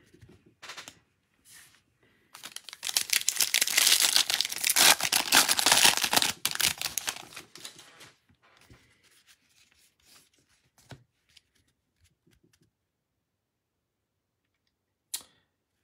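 Foil wrapper of a Bowman baseball card pack crinkling and tearing for about five seconds, starting a couple of seconds in. Then come faint taps and slides of the cards being thumbed through by hand, and one short click near the end.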